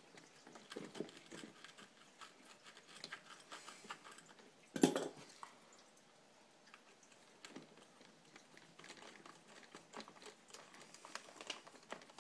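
Scattered light clicks and scrapes of a hand tool and small parts being handled while screws are taken out of a plastic RC car chassis, with one sharper knock about five seconds in.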